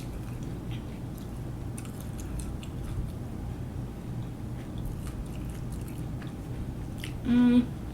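Close-up chewing and biting of a fried chicken nugget, with small wet clicks of the mouth. Near the end comes one short, louder hummed "mm".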